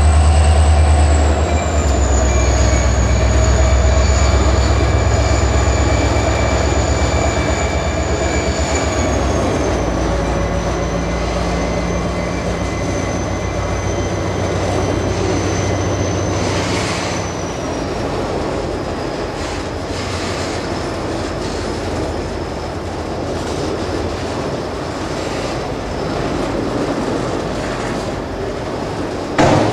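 Diesel-electric freight locomotive pulling away with a train of auto rack cars: a heavy engine rumble that fades over the first several seconds, a steady high whine that drops in pitch in steps, and the cars rolling past on the rails. A sudden knock near the end.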